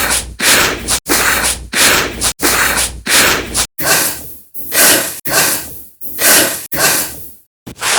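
Heavy human breathing from exertion: a rapid run of noisy breaths in and out with a short break about halfway through, after which each breath swells and fades a little more slowly.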